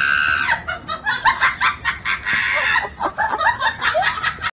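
Rapid, high-pitched cackling laughter, about five short bursts a second, in long runs that cut off suddenly near the end.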